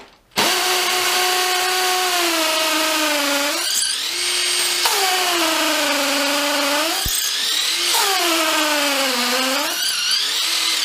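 Makita DTP141 cordless 4-mode impact driver drilling an 8 mm hole into brick with a masonry bit. Its motor whine drops in pitch as it slows under load, picks up twice in the middle, then sags again before it stops near the end.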